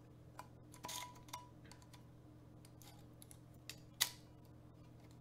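A few short metallic clicks and clinks from a Zippo lighter being worked, its lid and flint wheel snapping, with the sharpest click about four seconds in. The lighter is being struck with no lighter fluid in it.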